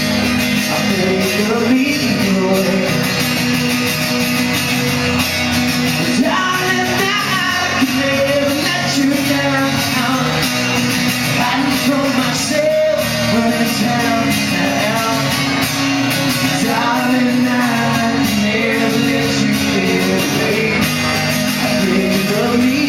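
Live band playing a rock song, with singing over guitar and drums, in a large hall.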